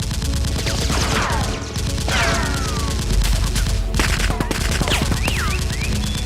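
Sustained rapid automatic gunfire, a dense stream of shots, with several falling whistling tones over it; these are the sound effects laid over the Nerf gun battle.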